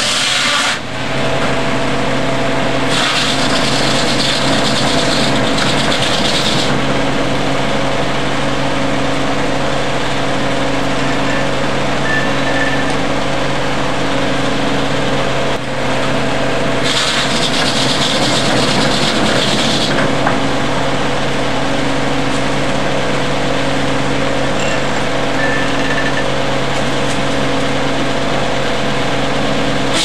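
Antique sawmill running with its 42-inch circular saw blade spinning: a loud, steady machine hum. Twice, about 3 seconds in and again about 17 seconds in, the blade cuts through the log on the carriage, adding a harsher high-pitched ripping for three to four seconds each time.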